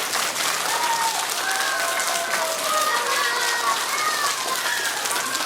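A room full of young children clapping steadily, with scattered high children's voices calling out over the applause.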